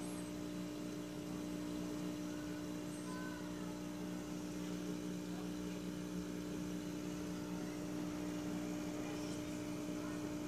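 Steady electrical hum of running aquarium equipment, a low buzz that holds one pitch without change.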